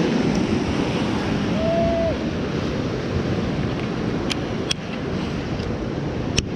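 Wind buffeting the microphone over the steady wash of ocean surf, with a few sharp clicks in the second half.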